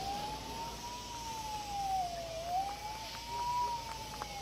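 Siren wailing: one tone rising and falling slowly, about once every two and a half seconds.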